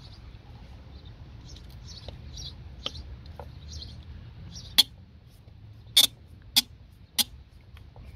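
Sharp metallic clicks of a nut driver working the screws of a mass air flow sensor housing: one click about five seconds in, then three more in quick, even succession, over a low steady rumble.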